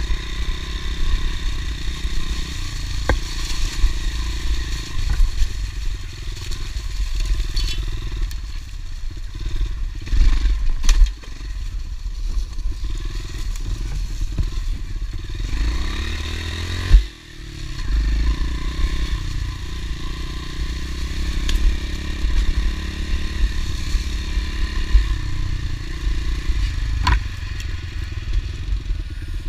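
Honda CRF110 pit bike's small four-stroke single-cylinder engine running as it is ridden along a rough trail, its note rising and falling with the throttle. There are occasional sharp knocks, loudest about a third of the way in and again a little past halfway, where the engine briefly drops away.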